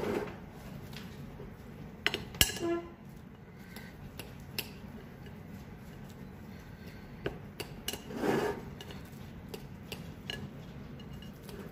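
A knife cutting through an egg-and-bread omelette on a ceramic plate: the blade scrapes and clicks against the plate in scattered sharp taps, the loudest about two and a half seconds in.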